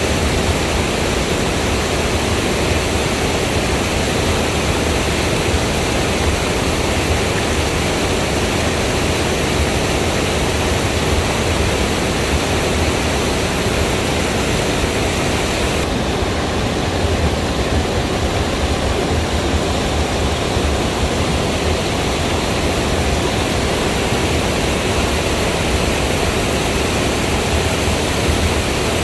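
Waterfall water rushing, a loud steady noise without breaks.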